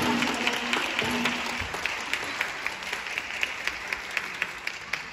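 Audience applauding in a hall, the clapping slowly thinning and getting quieter. The last notes of the dance music die away about a second in.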